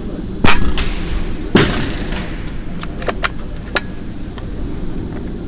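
PCP air rifle shots: a loud crack about half a second in and another about a second later, each echoing in the indoor range. They are followed by a run of short metallic clicks as the rifle's action is cycled. A steady low hum lies underneath.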